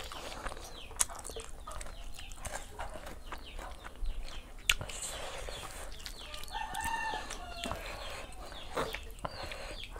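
Chickens clucking and peeping in the background, many short falling calls, with one longer held hen call about two-thirds of the way through. Two sharp clicks stand out, one about a second in and one near the middle.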